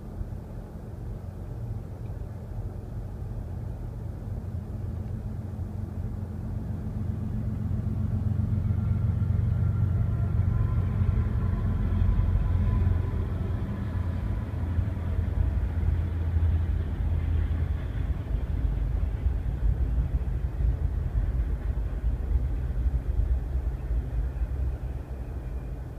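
Union Pacific freight train's diesel locomotives approaching and passing, a deep rumble that builds over the first ten seconds or so, then the rumble of double-stack container cars rolling by. It is heard from inside a car through the windshield.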